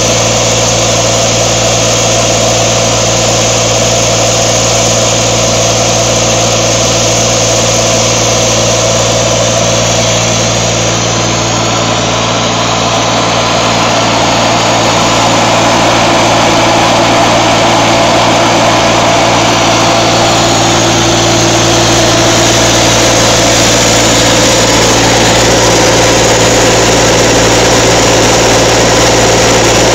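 Broomwade diesel air compressor's Massey Ferguson 135 three-cylinder diesel engine running steadily, getting a little louder from about halfway through.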